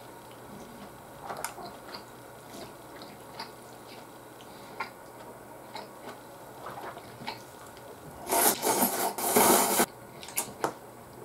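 Soft wet chewing and small mouth clicks while eating ramen, then about eight seconds in a loud slurp of noodles in two pulls, lasting about a second and a half.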